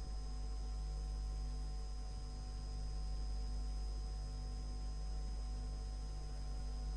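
Steady low electrical hum with faint hiss, the background noise of an old recording, with no voice.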